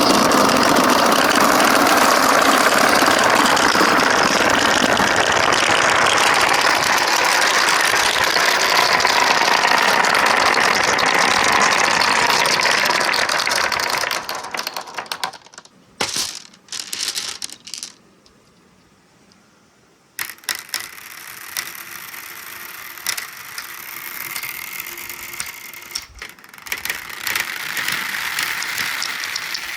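Many glass marbles rolling and clattering down stainless steel marble-run ramps: a dense, loud rush of rolling and clicking that thins out after about 14 seconds to a few separate clicks and a near-quiet spell. Lighter rolling and clicking then starts again for the last ten seconds.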